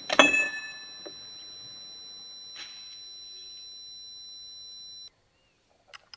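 Springfield Model 1873 Trapdoor rifle's breechblock being flipped open after a shot: a sharp metallic snap with a brief ring just after the start, then a few small clicks near the end as the open breech is handled. A faint steady high-pitched tone runs underneath and cuts off suddenly about five seconds in.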